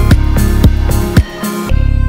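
Background music with a drum beat and a pitched melody over a steady bass.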